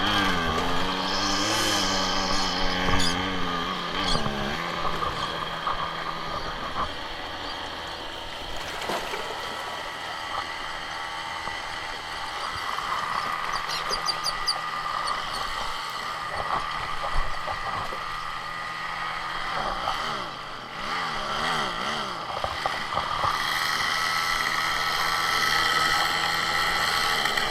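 Small gas engine of lawn or yard equipment running steadily, its pitch wavering a few times as the engine speed shifts.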